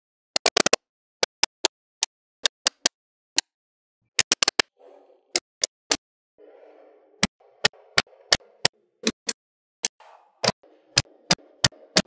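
Small magnetic balls clicking as blocks of them are set down and snapped together on a hard surface: sharp, irregular clicks, some in quick clusters. From about five seconds in, a faint soft rubbing runs under the clicks as the joined frame is handled.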